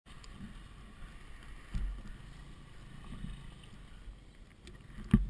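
Low rumble of wind and handling noise on a helmet-mounted camera's microphone, with a thump about two seconds in and a louder knock near the end.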